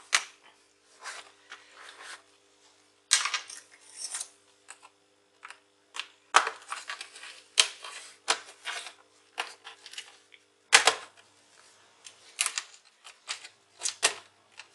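Irregular clicks, taps and knocks of a partly disassembled laptop's plastic casing being handled and moved about on a desk.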